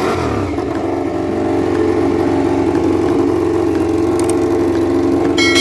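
Racing motorcycle engines running steadily, warming up in preparation for a race, as a dense, continuous engine drone. Near the end, bright steady musical tones come in over it.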